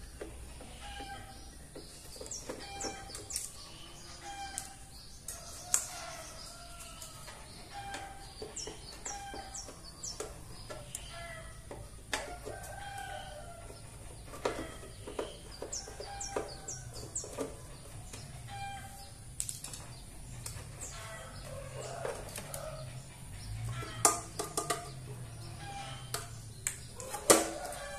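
Scattered clicks and knocks from hands working open the housing of a digital platform scale's indicator head, the loudest near the end. Chickens cluck and crow in the background.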